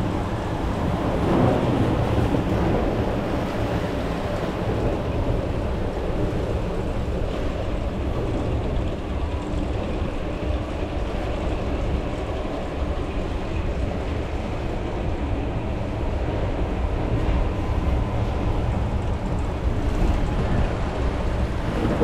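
Steady low rumble and wash of water around a Hafema river rapids raft floating along its channel, heard from on board, with wind on the microphone. The water is a little louder about one to two seconds in.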